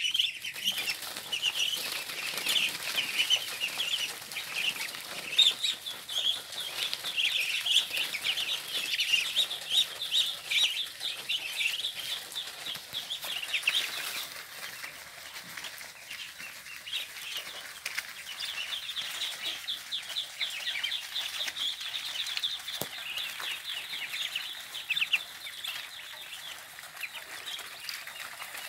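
A flock of young Muscovy ducks peeping continuously, many short high calls overlapping.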